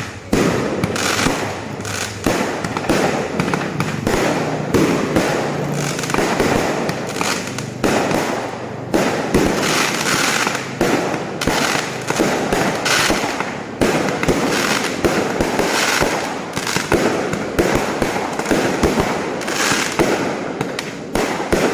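Fireworks going off in a dense, continuous barrage: rapid cracks and bangs overlapping one another, with louder bursts every second or so.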